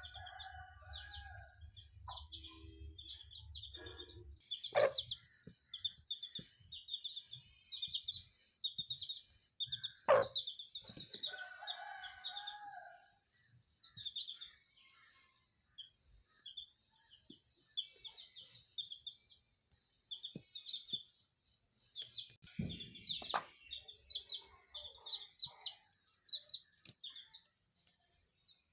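Country chickens in a poultry pen: a steady stream of short, high peeping calls with some lower clucking, and a few sharp knocks.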